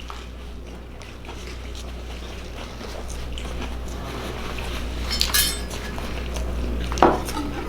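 Cutlery clinking against dishes in a couple of short clatters, about five seconds in and again near the end, over a steady low hum.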